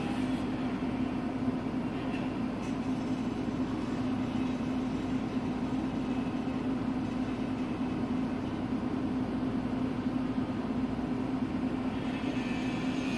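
Steady mechanical hum with one constant low tone and an even wash of noise, heard inside a tower crane's cab.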